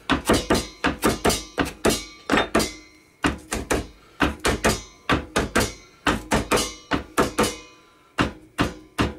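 Kitchen knife chopping fresh dill on a plastic cutting board: quick knocks of the blade on the board, about four a second, in runs with brief pauses about three seconds in and near the end.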